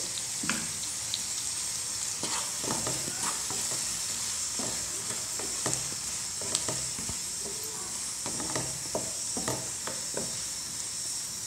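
Raw banana cubes and sliced onions sizzling in oil in a non-stick pan, a steady hiss, while a wooden spatula stirs in the turmeric and salt, with scattered scraping knocks of the spatula against the pan.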